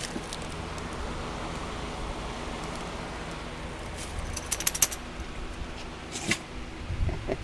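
A quick jingle of small metal pieces, a handful of sharp ringing clinks about halfway through, over a steady low background noise. A single knock follows a little over six seconds in, then a few dull thumps near the end.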